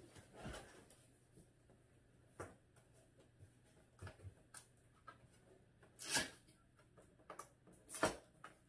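Hands working at a cardboard box's top flap: scattered light scratches and taps, with louder brief scrapes about six seconds in and again near the end.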